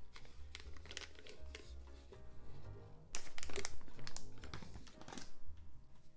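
Clear plastic piping bag crinkling and rustling as it is handled and filled with mashed potato, the crackling loudest and densest from about three seconds in. Soft background music plays underneath.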